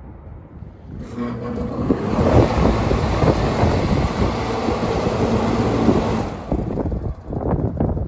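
Two condenser fans on a York rooftop unit, fitted with new blades, spinning up and running with their contactor pushed in by hand: a steady rush of air with a low motor hum. The sound drops away about six seconds in.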